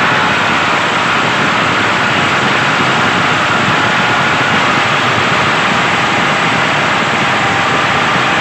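Small electric gear motors of a toy tractor running steadily with a faint wavering whine, as its rear grader blade and cultivator drag through sand.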